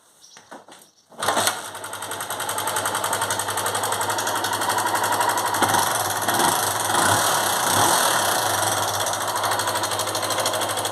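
Honda Titan 150's single-cylinder four-stroke engine starting about a second in and then running steadily with a fast mechanical clatter. The engine is making a strange noise whose cause is not yet diagnosed.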